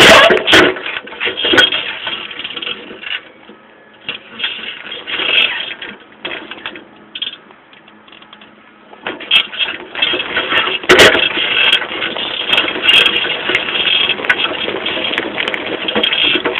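Bicycle ridden over rough ground, heard close to the rear wheel: tyre noise mixed with irregular knocks and clattering from the frame, chain and rear shock absorbers. It goes quieter for a few seconds in the middle, then the clattering picks up again.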